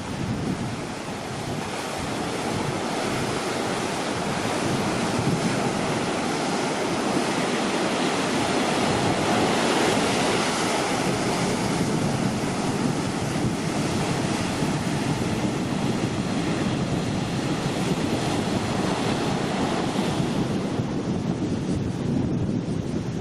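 Heavy surf from typhoon swell breaking and washing continuously, with wind blowing on the microphone. The wash swells to its loudest about ten seconds in.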